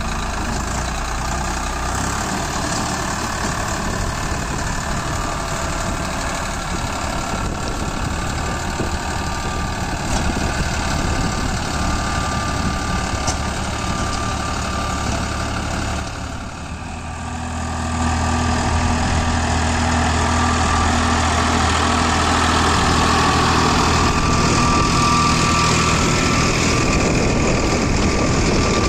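Farmtrac 60 tractor's three-cylinder diesel engine running while it drives a GS rotavator through dry soil. The sound dips briefly about two-thirds of the way through and comes back louder and steadier.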